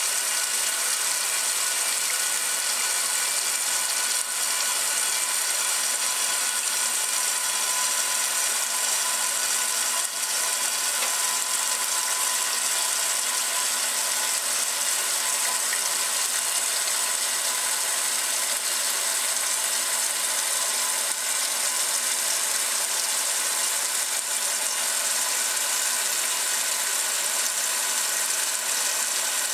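A 1968 Kenmore top-loading washing machine agitating a load of laundry in water: a steady mechanical running sound with water swishing in the tub.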